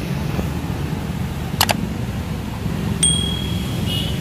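Subscribe-button sound effect over a steady low rumble of street traffic: a sharp click, then about a second and a half later a bright bell ding that rings for most of a second, with a brief second chime near the end.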